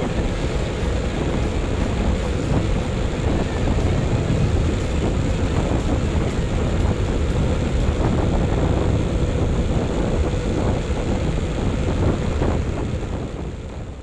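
Motorcycle running along a bumpy dirt track, with engine rumble and wind buffeting the microphone. The sound fades out near the end.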